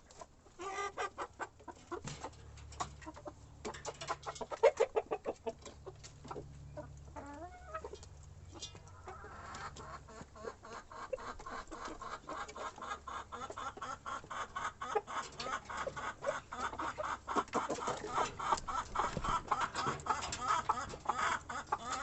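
A flock of chickens clucking, the calls growing busier and more continuous from about nine seconds in.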